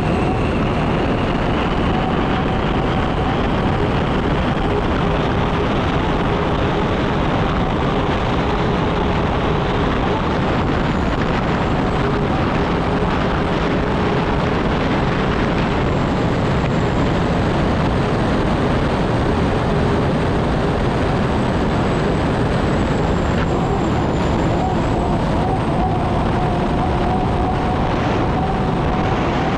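Unlimited hydroplane's Lycoming T55 turbine engine running under way, a steady high whine over heavy rushing wind and water noise, heard from onboard the boat. One whining tone rises in pitch over the first few seconds.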